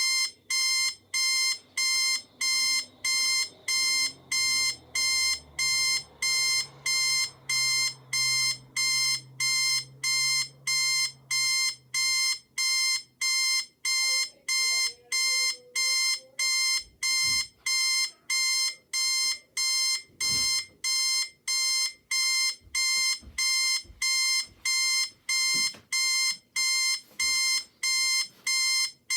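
Electronic alarm beeping: a steady, high-pitched beep that repeats at about two a second without a break.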